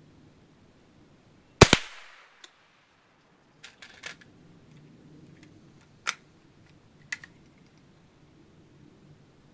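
A single shot from an Ithaca M49 .22 rimfire lever-action rifle about a second and a half in, followed by a few quieter sharp clicks.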